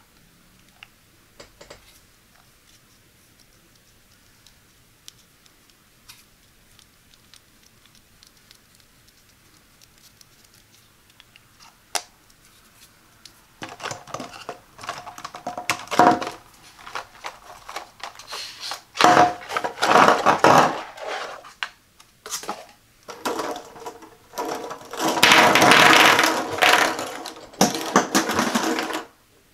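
Plastic glue sticks clattering and rattling against one another, the cardboard box and the table as they are tipped out and spill across the tabletop, in several loud runs through the second half. The first half holds only faint clicks of the sticks being handled.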